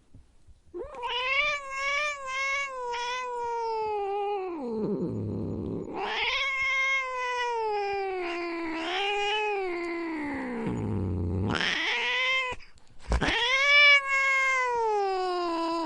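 Angry domestic cat yowling: long, wavering howls that twice sink into a low growl, with a short break about twelve seconds in before another long, drawn-out yowl.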